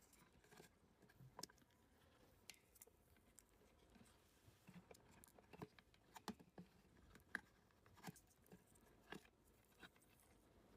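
Faint, irregular ticks and crackles of insulating tape being unwound and wrapped around a spliced power-cord joint.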